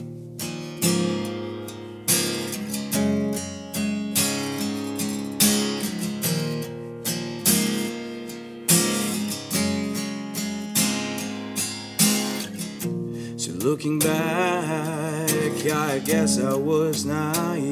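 Acoustic guitar played solo, strummed and picked in a steady rhythm as an instrumental break. Near the end a wordless singing voice comes in over the guitar.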